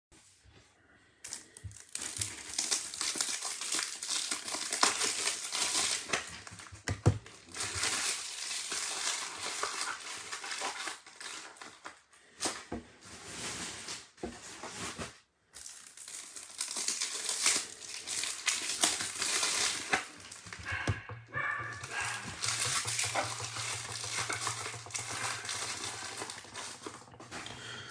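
Crinkling and rustling of something being handled, in long stretches broken by short pauses, with a low steady hum joining in during the last several seconds.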